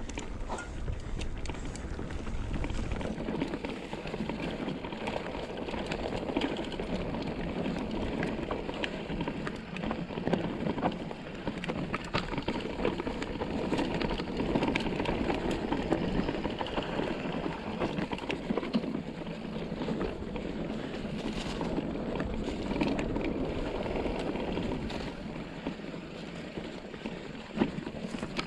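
Mountain bike rolling over a dirt and rocky trail: steady tyre crunch on loose soil and stones, with frequent small clicks and rattles from the bike.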